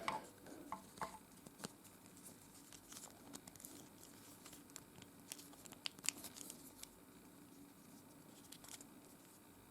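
Faint scattered clicks and light taps of a small plastic figure being handled while its head is fitted onto the body, the loudest click about six seconds in.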